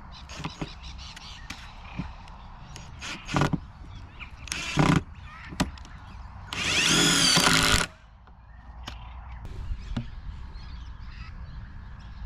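Cordless power driver driving self-tapping screws: two short bursts, then one run of about a second and a half with a wavering motor whine, among scattered knocks and clicks of handling.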